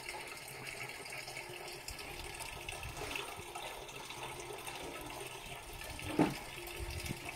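Spring water flowing steadily from its outlet, an even rushing splash, with a brief knock about six seconds in.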